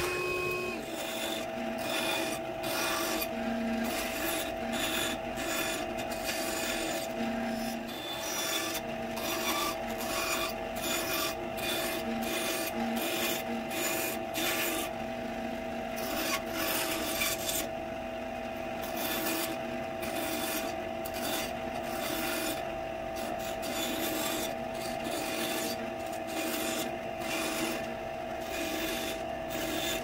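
Small benchtop band saw running with a steady motor hum while its blade makes a quick series of short cuts through a strip of softwood, each cut a brief rasping burst.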